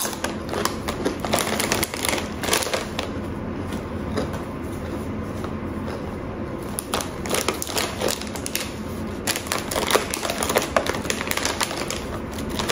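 Lay's potato chips crunching as they are chewed: irregular runs of crisp cracks, with a thinner stretch in the middle.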